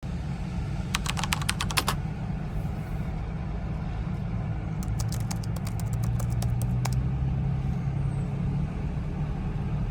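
Steady low rumble of strong wind buffeting the microphone, with two quick runs of light, sharp clicks, one about a second in and another from about five to seven seconds in.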